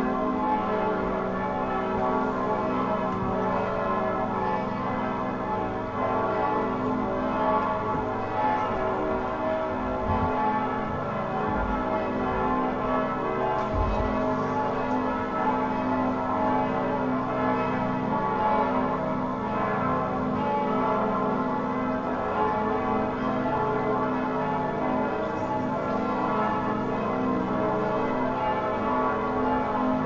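Church bells pealing: many bells ringing at once, overlapping in a continuous, steady wash of tones.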